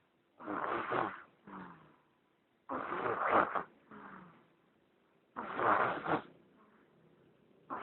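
Snoring: three long snores about two and a half seconds apart, each followed by a softer breath.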